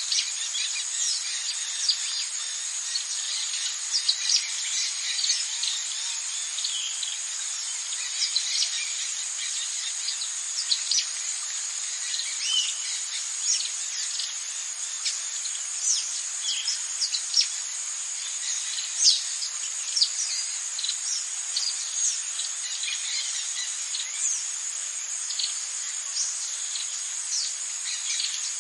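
Rainforest ambience: a steady, high insect drone with many short, quick bird chirps and calls scattered over it throughout.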